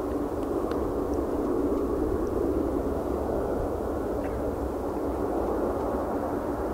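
Airbus A380-841's four Rolls-Royce Trent 900 turbofans on final approach: a steady jet drone with a constant low tone running through it.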